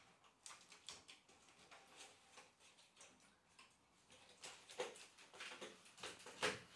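Faint scattered clicks and light plastic taps of a polycarbonate cloaking panel being handled and pushed up under metal spring clips on a fascia. Two louder knocks come near the end.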